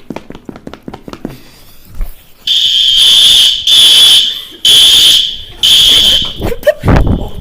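School fire alarm going off for a fire drill: a loud, high-pitched electronic horn that starts a few seconds in and sounds in repeated blasts about once a second, with brief gaps between them.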